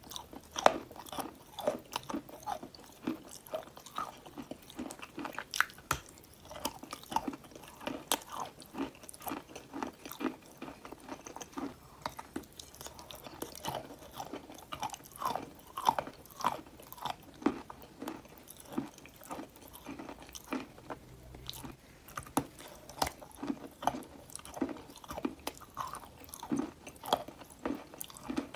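Close-miked biting and chewing of crunchy clay bars coated in wet clay: a steady run of crisp crunches, about two a second.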